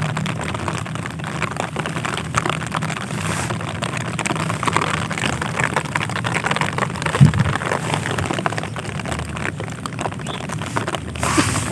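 Rain falling steadily, a dense pattering of many small drop ticks over an even hiss, with a constant low rumble underneath.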